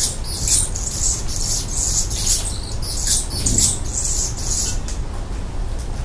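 Volcano hummingbird giving a rapid run of very high, thin, squeaky chips that stops about five seconds in, over a steady low background rumble.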